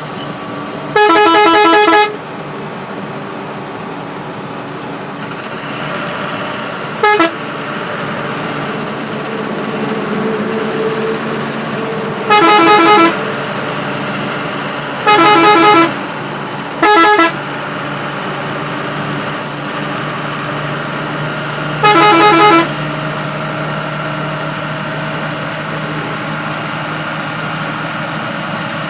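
Bus horn sounding six times, four blasts of about a second and two short toots, the last about two-thirds of the way through, as the bus overtakes trucks on the highway. Between the blasts the bus engine and road noise run steadily, heard from inside the driver's cab.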